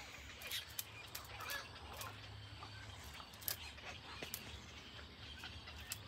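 Short, sharp bird calls scattered irregularly, from a downy nestling in a stick nest, over a steady low rumble.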